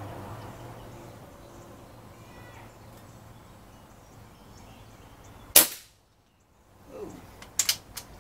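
Umarex Gauntlet .22 PCP air rifle firing a single shot about five and a half seconds in, one sharp crack. Near the end come a few short sharp clicks.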